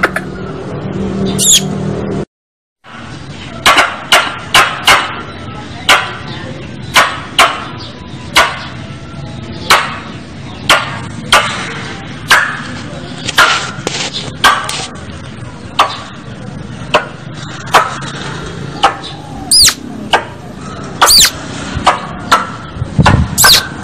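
Squirrel lure call: a squirrel's sharp chipping calls repeated about once or twice a second, with a few high falling whistles near the end. The sound cuts out for half a second about two seconds in.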